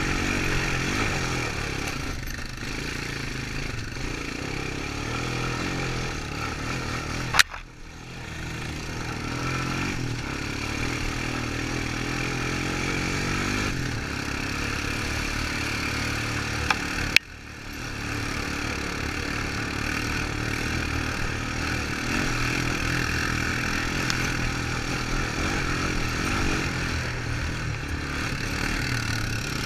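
Honda Recon 250 ATV's single-cylinder four-stroke engine running steadily under way, picked up by a helmet-mounted camera. Two sharp clicks, about 7 and 17 seconds in, are each followed by a brief dip in the sound.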